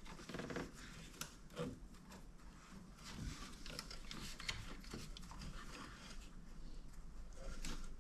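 Faint scattered clicks and rubbing from hands working a rubber coolant hose and its clip back into place.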